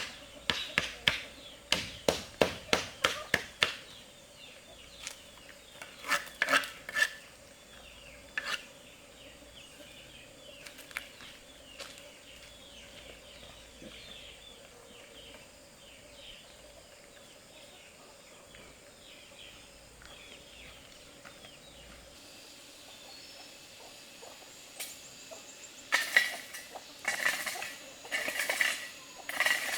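Newly hatched ducklings peeping, many short falling peeps overlapping. A quick run of sharp taps comes at the start and a burst of clinks and knocks near the end.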